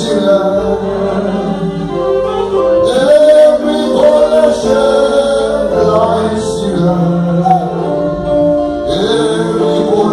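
A group of voices singing a gospel song together.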